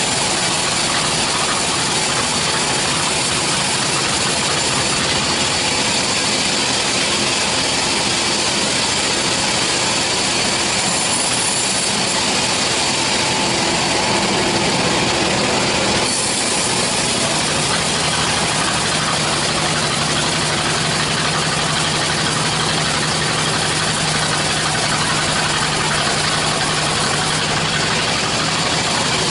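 Vertical band sawmill running steadily as its band blade saws lengthwise through a log, with an abrupt shift in the sound about halfway through.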